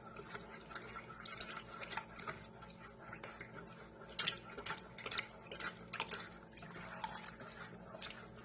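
Wire whisk stirring a thin liquid of water, eggs, oil and dried yeast in a bowl: faint sloshing with irregular light clicks of the whisk against the bowl, over a faint steady hum.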